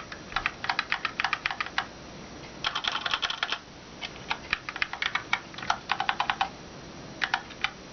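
Keychron K2 mechanical keyboard with Gateron Brown tactile switches and ABS keycaps being typed on. Keystrokes come in irregular bursts separated by short pauses, with a fast, dense run of keystrokes about three seconds in.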